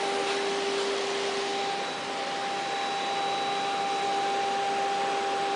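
PADE 5-axis CNC wood router running idle: a steady hiss with a steady whine held under it.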